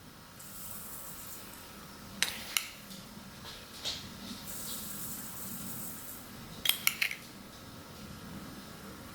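Kitchen utensils clinking against bowls and dishes during food preparation. A few single light clinks come early, then a quick cluster of three or four clinks about seven seconds in, with stretches of soft high hiss between them.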